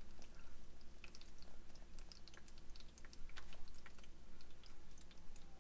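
A dog chewing a treat: irregular small crunching clicks.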